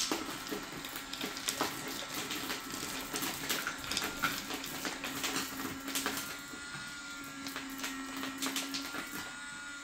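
Small electric motor driving the ND2 bait spiral, the auger in a bait boat's hopper, running steadily with a low hum and a thin higher whine. Frequent light clicks and ticks come from sweetcorn and pellets being churned and pushed out by the turning spiral.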